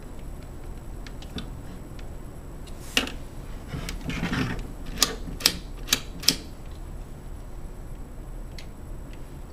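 Hand work on a deadbolt's hardware: a sharp click, a brief rustle, then four sharp clicks in quick succession about half a second apart, as the back of the lock is fitted and fastened to its backing plate.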